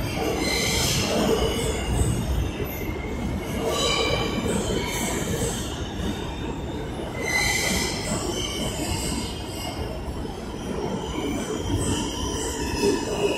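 New York City subway train rolling along the station platform: a steady rumble of the cars, broken by repeated short, high-pitched squeals of steel wheels on the rails.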